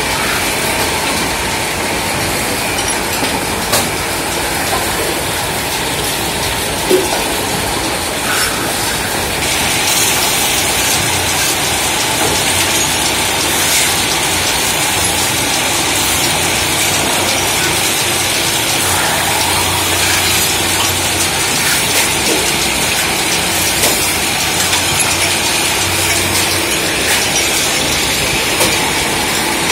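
Several belt-driven metal-spinning lathes running together while hand-held tools press against spinning aluminium pot blanks, making a steady mechanical din with scraping hiss and occasional sharp metallic clicks. The high scraping noise grows louder about a third of the way in.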